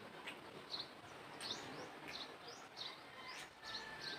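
Small birds chirping over faint background noise: a run of short, high chirps, several a second.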